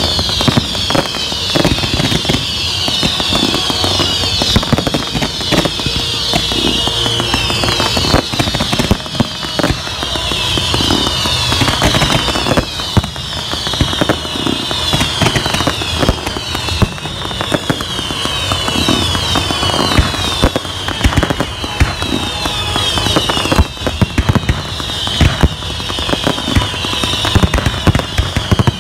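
Fireworks display: a dense, continuous barrage of bangs and crackling, with many overlapping whistles that fall in pitch.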